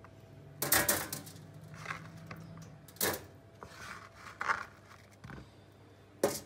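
Chopped raw cauliflower pieces being scooped by hand off a plastic chopping board and dropped onto a foil-lined baking tray. The scraping and clattering comes in several separate bursts, the loudest about a second in.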